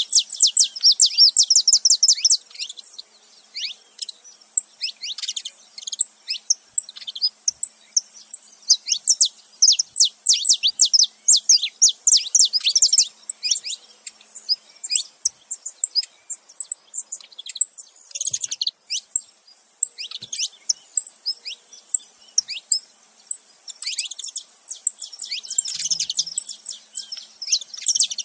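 A male and a female saffron finch chirping and singing together: fast runs of short, high, downward-sweeping notes in bursts, with brief pauses between them.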